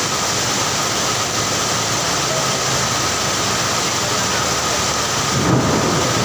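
Heavy rain pouring steadily as a dense, even hiss. A low rumble swells briefly near the end.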